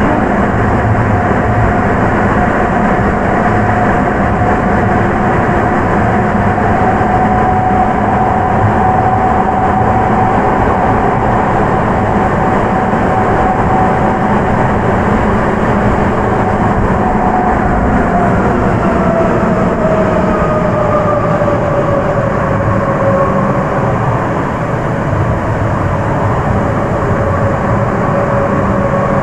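Sapporo subway 9000-series train on rubber tyres, heard from inside the car, running at speed with a dense steady rumble and a whine from its Hitachi IGBT traction drive. About two thirds of the way through, the whine falls steadily in pitch and then settles lower as the train's speed drops.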